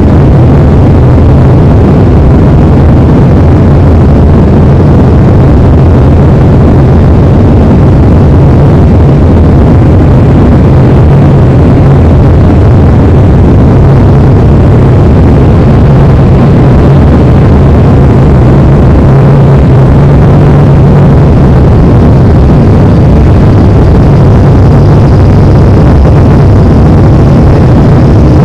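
Airliner engine noise: a steady, loud roar with a deep low hum, with no change in pace. A faint high whine joins it near the end.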